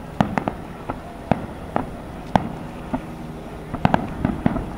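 Aerial firework shells going off in an irregular string of sharp bangs, about a dozen, with several in quick succession about four seconds in.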